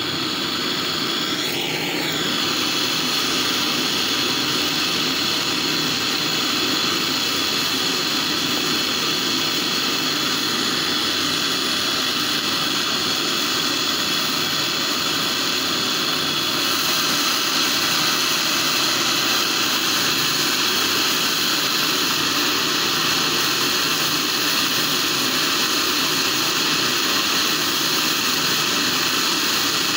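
Handheld gas torch flame burning with a steady, loud hiss, heating a quarter-inch copper AC pipe joint for brazing.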